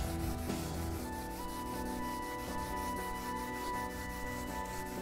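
A Scotch-Brite pad scrubbing rapidly back and forth across a steel welding table top, working a paste of Bar Keepers Friend and degreaser into the surface to lift surface rust. Steady background music with held notes plays underneath.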